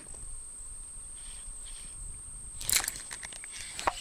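A steady high-pitched insect trill, with two short clusters of sharp knocks, one about three quarters of the way through and one near the end.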